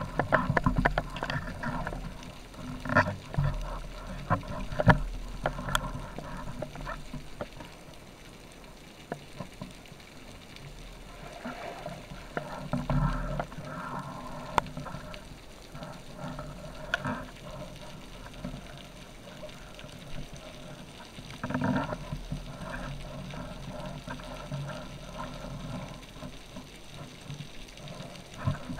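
Muffled water sloshing and bubbling heard through an underwater camera's housing, with irregular knocks and bumps from handling. The sharpest knocks come a few seconds in.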